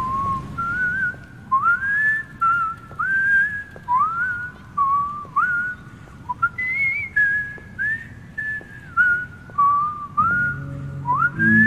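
Whistled melody in a hardcore dance track: a string of short notes, each sliding up into its pitch, over faint ticks. Low bass chords come in near the end.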